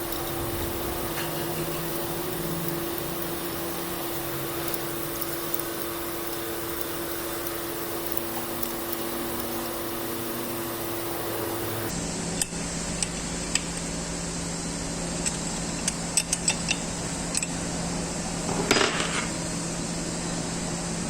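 Workshop work on metal pump parts: a steady mechanical hum, then, after an abrupt change a little over halfway, a series of light metal clicks and taps from tools and parts being handled, with one short louder scrape near the end.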